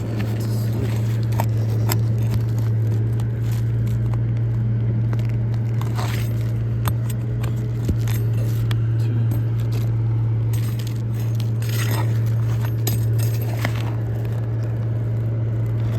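Thin metal roofing pry bar scraping and clicking under brittle asphalt shingles to work nails loose, with scattered sharp ticks and crackles as the shingles crack. A steady low hum runs underneath.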